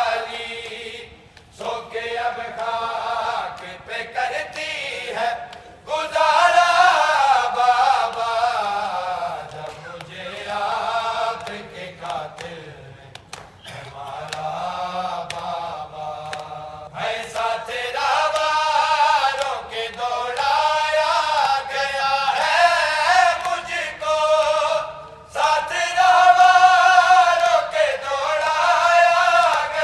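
Men's voices chanting a noha, an Urdu mourning lament, sung in long phrases with short breaks between them.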